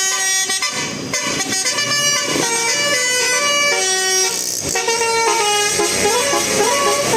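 Bus telolet horn, a set of several horn trumpets playing a melodic tune in quick stepping notes, often more than one note at a time.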